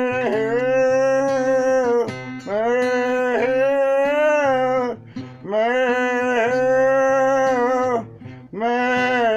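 A man's voice singing long, wordless held notes in four phrases of about two seconds each, each note sliding up into pitch, over a steady musical accompaniment.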